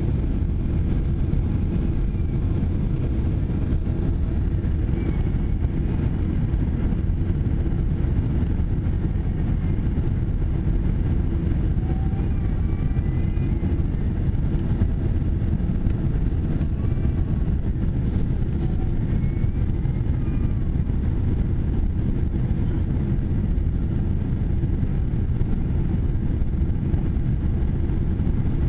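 Jet airliner cabin noise on descent: a steady low rumble of engines and airflow, even in level throughout.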